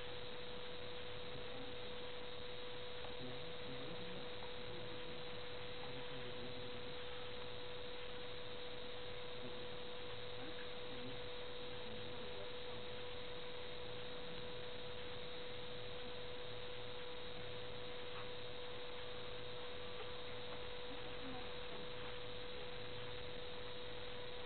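A steady, unchanging electronic tone, a single mid-pitched whine with a fainter higher overtone, over a low even hiss.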